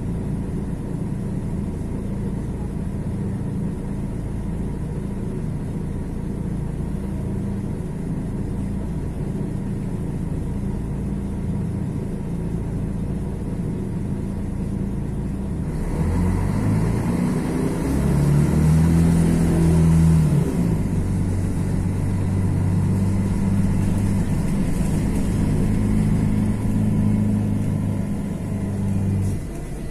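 Mercedes-Benz OM 457 LA inline-six turbodiesel of an O-500MDA articulated bus running at a steady low speed, then, about halfway through, revving up with a rising pitch as the bus pulls away, settling into a steady, louder running note that eases off just before the end.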